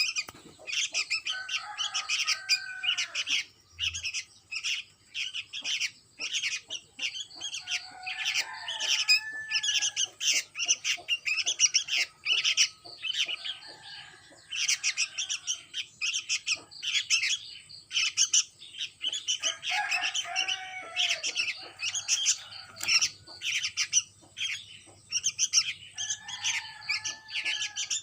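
Sooty-headed bulbul chicks chirping rapidly and without a break, with a lower, gliding call coming in about every five or six seconds.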